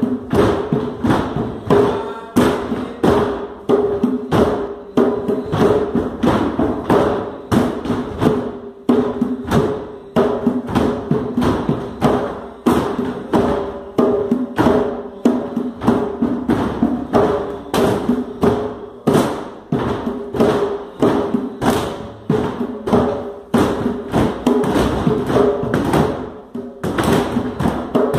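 Drum-led music: rapid, evenly repeated drum strikes, several a second, over a steady held tone.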